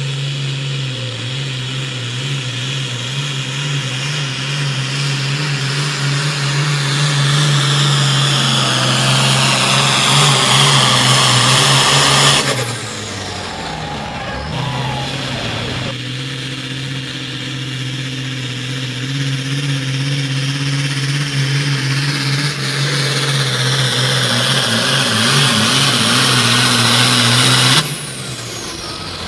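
Modified turbocharged diesel hot farm pulling tractors at full throttle, dragging a weight-transfer sled: a loud engine under heavy load with a high whine that climbs in pitch and grows louder as each run goes on. Two runs, the first cut off abruptly about twelve seconds in, the second near the end.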